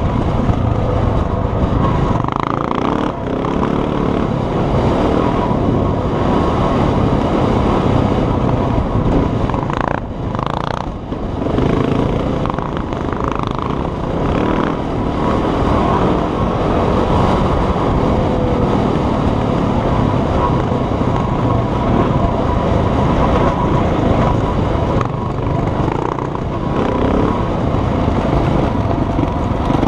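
Off-road motorcycle engine running steadily under way, the note dipping briefly about ten seconds in before picking up again.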